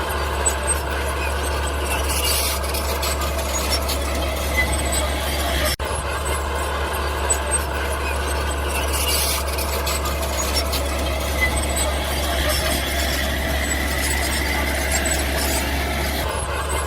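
Mini bulldozer's engine running steadily, with scattered squeaks and clicks. The sound breaks off abruptly for an instant about six seconds in.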